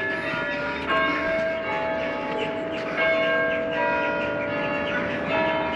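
Church bells ringing, several bells of different pitch struck one after another, each note ringing on.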